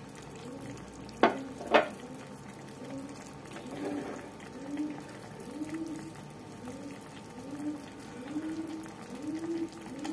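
Rice simmering in water in a wide pan, with low bubbling plops about one or two a second. Two sharp clicks come about half a second apart, a little over a second in.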